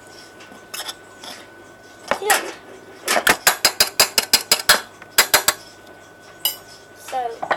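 Spoon clinking against a metal saucepan while stirring flour and cocoa powder: a quick run of sharp clinks, about seven a second, starting about three seconds in and lasting under two seconds, then two more.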